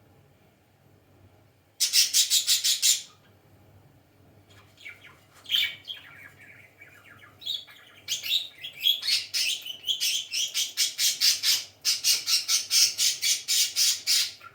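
Budgerigars calling: a fast run of harsh, rapidly repeated squawks about two seconds in, scattered chirps in the middle, then a longer fast run of repeated squawks through the last six seconds.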